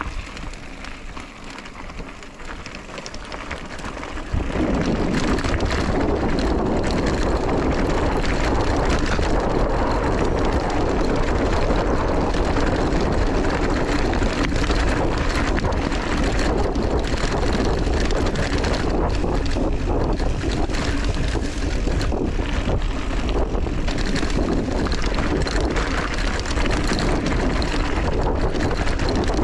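Wind rushing over the microphone of a handlebar-mounted camera, with the rumble of a mountain bike rolling over a gravel track. The noise jumps up suddenly about four seconds in and stays loud and steady.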